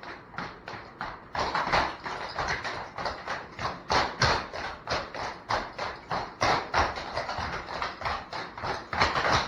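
Clogging taps striking a hard floor in a quick, even run of dance steps, several sharp strikes a second.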